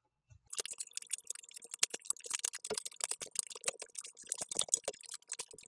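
A small leather-and-fabric clutch being turned right side out by hand: the leather and fabric crackle and rustle with many quick, irregular clicks, starting about half a second in.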